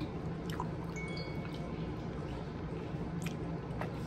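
Wet, squishy chewing and sucking of a long strip of chewy fruit candy being worked into the mouth without hands, with a few sharp wet mouth clicks over a steady low hum.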